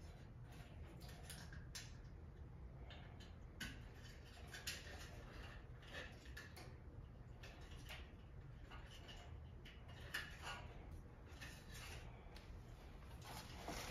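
Faint, irregular light clicks and taps over a low steady hum, typical of small parts or tools being handled.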